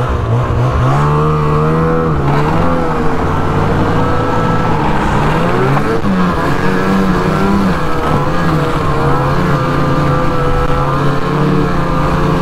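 Ski-Doo MXZ 600 E-TEC snowmobile's two-stroke twin engine running under way, heard from the rider's seat. It picks up in pitch about a second in, drops back and climbs again around the middle, then holds a fairly steady cruise.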